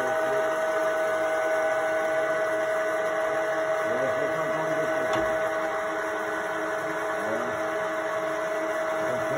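ERLO TCA 40 pillar drill running, its motor and gearbox giving a steady hum with a constant whine.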